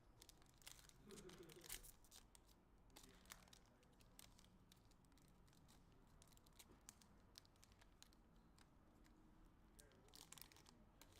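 Near silence with faint crinkling and tearing of a foil trading-card pack wrapper, and cards being handled with small scratchy clicks, most of them in the first two seconds and again near the end.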